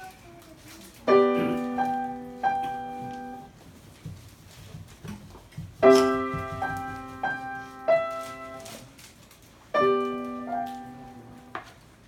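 Grand piano played by a child: three short phrases, each opening with a loud struck chord (about a second in, near six seconds and near ten seconds), followed by a few more notes and left to ring and fade before the next.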